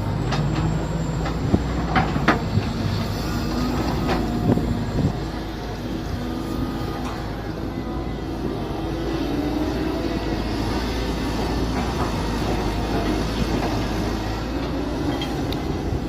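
Mini excavator running steadily while digging, with a constant engine rumble. Several sharp knocks come in the first five seconds, and a faint tone drifts up and down later on.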